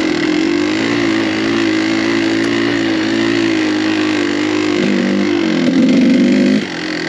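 Kawasaki KDX200 two-stroke single-cylinder dirt bike engine running at a steady speed while riding. About five seconds in the pitch shifts and it gets louder for about a second, then drops off sharply near the end.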